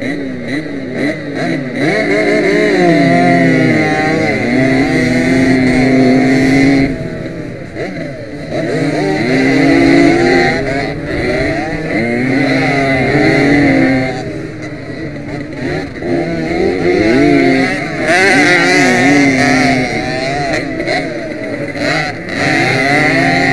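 Small 50 cc two-stroke motorcycle engines run flat out from the start of a race heat. The nearest engine revs up and drops back again several times as it shifts and slows for turns, with other bikes close by.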